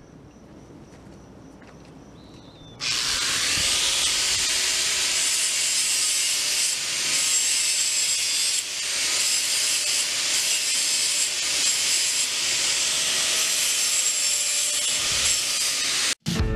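Gas-shielded MIG welder arc welding steel hog-panel wire: a steady hissing noise that starts suddenly about three seconds in, with a couple of brief breaks between welds, and cuts off abruptly near the end.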